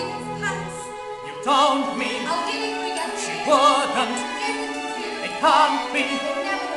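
Voices singing in short phrases with wide vibrato over a live orchestra of strings and brass.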